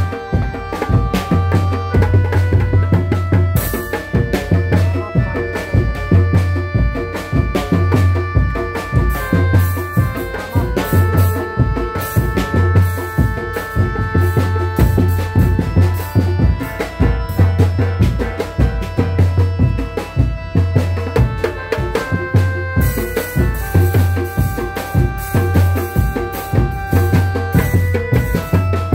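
Music for a costumed big-cat dance: dense, fast drumming over a deep, regular drum beat, with a melody of long held notes stepping from pitch to pitch every second or two.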